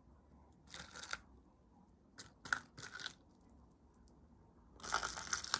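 Plastic cups and a package of acrylic primer being handled on a table: three short bursts of crinkling and scraping, about a second or two apart.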